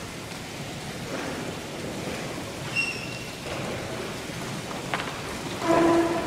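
Steady noise from a congregation in a large church, with a brief high tone about three seconds in and a short, louder pitched note near the end.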